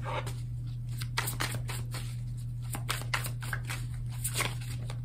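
A deck of tarot cards being shuffled by hand: a quick, irregular run of soft card clicks and flicks over a steady low hum.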